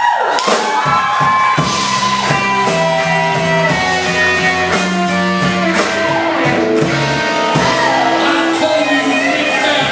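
Live rock and roll band playing: a Telecaster-style electric guitar over bass guitar and a drum kit, the drums keeping a steady beat.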